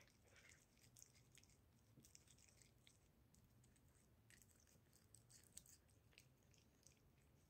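Tabby kitten eating liverwurst, licking and chewing at the sausage in its casing: faint, irregular little clicks and smacks of tongue and teeth.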